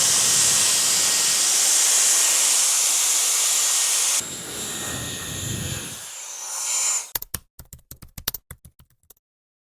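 Hair styler blowing a loud, steady rush of air with a thin high whine. It drops to a weaker rush about four seconds in and cuts off near seven seconds, followed by a quick run of sharp clicks.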